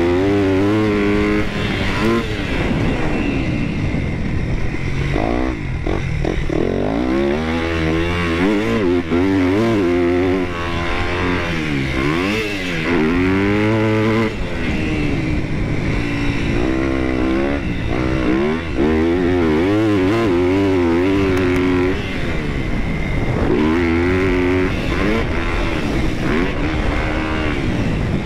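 Dirt bike engine heard from on board while being ridden around a motocross track, its pitch climbing and dropping over and over as the throttle opens and closes and the gears change.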